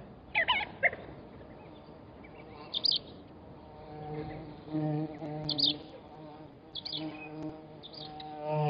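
A flying insect buzzing close to the microphone with a steady low hum that comes and goes from about halfway through. Birds chirp at the same time, with the loudest calls in the first second and a few more scattered later.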